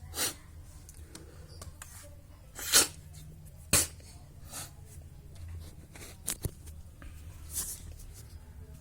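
A person sniffing sharply through the nose three times, with a few light clicks in between. The person is breathing in the aroma of sliced shallots to clear a blocked nose.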